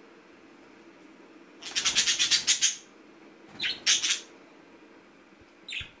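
Budgerigar calling: a harsh, rapidly pulsing squawk about two seconds in lasting about a second, two shorter calls around four seconds in, and a brief chirp near the end.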